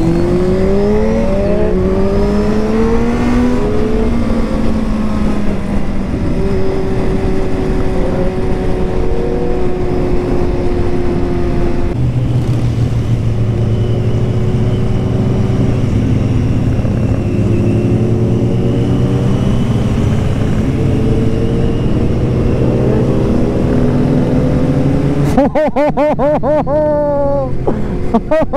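Motorcycle engine heard from the rider's seat while riding on a highway: its pitch climbs as it accelerates over the first few seconds, holds steady, breaks about twelve seconds in, then rises again. Near the end a different, fast-wavering sound cuts in for a few seconds.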